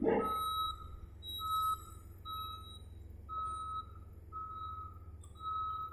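Reversing alarm on a Caterpillar 740B articulated dump truck beeping about once a second, each beep a steady high tone about half a second long, over a steady low rumble. A brief burst of noise comes right at the start.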